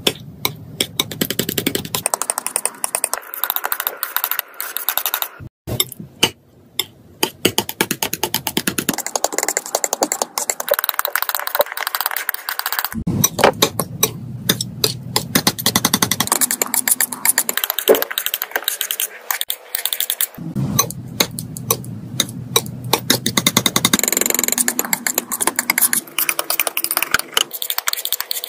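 Metal palette knife tapping and scraping through thick, wet paint on a hard surface: a rapid, uneven stream of sticky clicks and taps, with a few short pauses.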